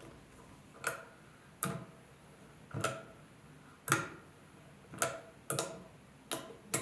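Sharp clicks from the mechanism of a MetMo Driver, a brass-and-steel ratcheting screwdriver, as its side arm is swung round to drive a screw. There are about nine clicks at uneven spacing, roughly one a second, with two close together near the end.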